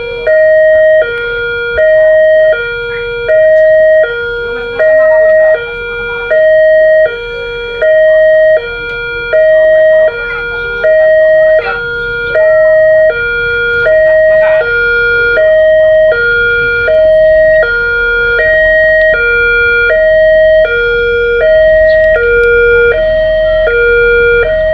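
Railway level-crossing warning siren sounding a two-tone hi-lo alarm, switching between a higher and a lower tone about every two-thirds of a second. In the first half the higher tone is much louder than the lower one; the two even out later. The uploader calls this crossing's siren unique and faulty.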